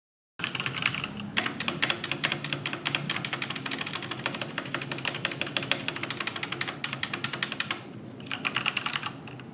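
Fast typing on a stock, unmodified E-Yooso K600 hot-swappable keyboard with red linear switches and a plastic plate, a rapid run of keystrokes that sounds hollow. It starts after a moment of dead silence.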